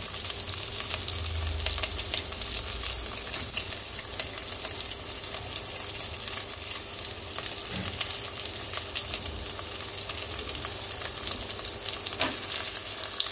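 Sliced onions, ginger and whole spices sizzling steadily in hot oil in an aluminium pressure cooker, with many small crackles of spattering oil.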